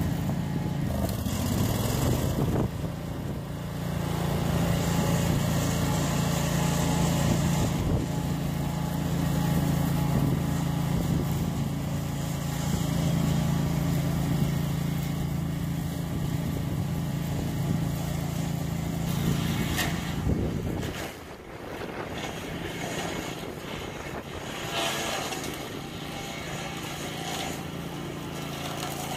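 Homemade walk-behind brush mower's engine running steadily with an even hum. About 21 seconds in the sound drops off sharply and carries on quieter.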